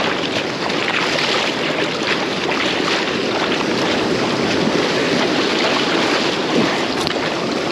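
Ocean surf washing onto the beach with wind buffeting the microphone: a steady rushing noise.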